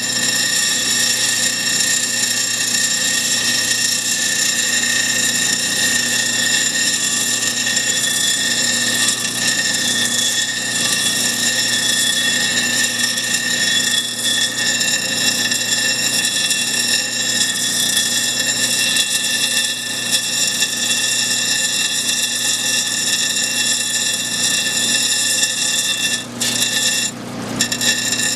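CabKing 6-inch cabochon machine running with water dripping over its wheels while a stone on a dop stick is ground against a wet wheel: a steady high whine over a grinding hiss. The sound briefly drops away twice near the end.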